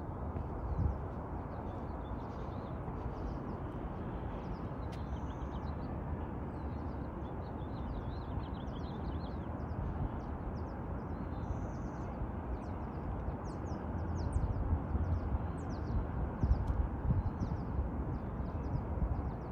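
Small birds chirping repeatedly in short high calls over a steady outdoor rush, with low rumbles of wind on the microphone growing stronger in the last few seconds.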